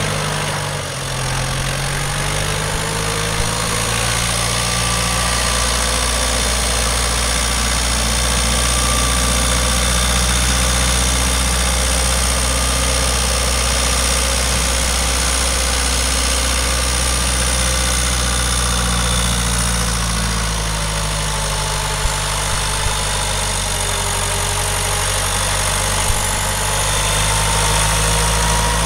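Farm tractor engine running steadily while the tractor powers a Weed Badger rotary weeder through the soil, with a few faint clicks.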